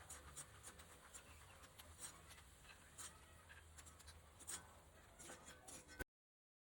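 Okra frying in oil in a pan: a faint sizzle with many small, irregular crackles. The sound cuts off abruptly about six seconds in.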